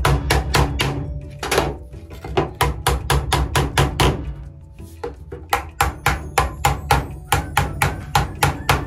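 Hammer blows driving PVC elbow and tee fittings onto PVC pipe, the frame resting on a table saw's top: quick runs of sharp knocks, about four a second, with a short lull near the middle. Background music runs underneath.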